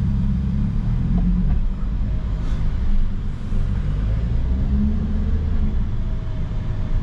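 Lamborghini engine running low and steady, heard from inside the cabin, as the car pulls away gently in first gear and shifts up into second.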